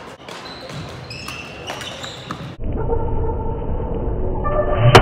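Sharp racket-on-shuttlecock hits echoing in a gymnasium. About two and a half seconds in, a louder, muffled, low drone with drawn-out tones cuts in suddenly.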